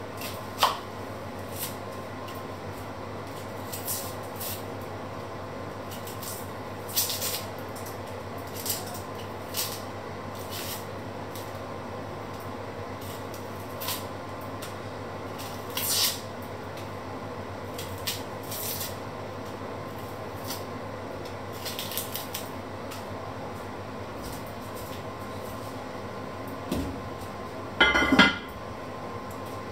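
Small kitchen knife clicking and scraping on a wooden cutting board while onions are peeled and cut, in scattered short taps every second or two over a steady low hum. Near the end comes a louder rattling clatter as the lid of a red lidded pot is handled.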